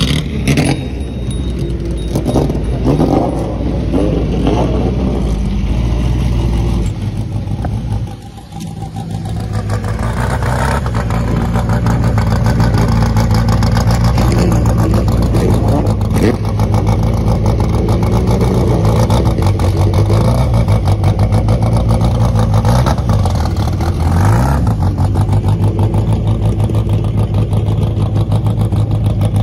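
Several 1950s racing sports car engines running loudly at low speed as the cars creep past in a queue, with a pulsing exhaust note and a short throttle blip about three-quarters of the way through. The sound dips briefly about eight seconds in, then swells as the next cars come close.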